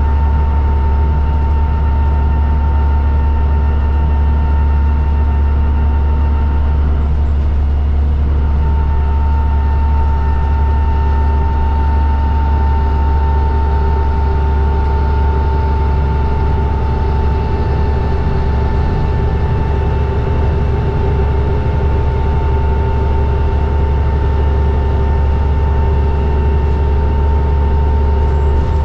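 A New Flyer D40LFR diesel city bus heard from inside the cabin while under way: a steady low engine drone with a thin, steady whine above it.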